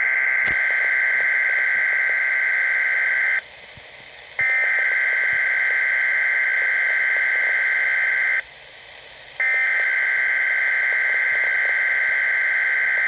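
Emergency Alert System SAME header on a Weatheradio Canada broadcast: a harsh two-pitch data buzz sent three times, each burst about four seconds long with a one-second gap between them. It marks the start of a new weather alert message.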